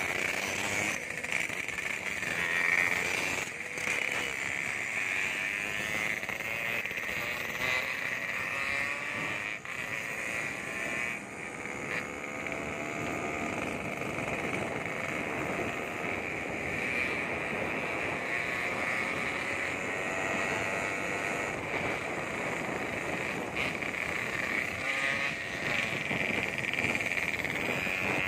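Motorcycle engine and exhaust heard while riding, the revs rising and falling with the throttle, under a steady rush of wind and road noise.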